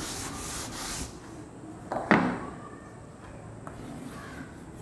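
Chalk scratching across a blackboard in a few short strokes during the first second, followed by a single sharp tap about two seconds in.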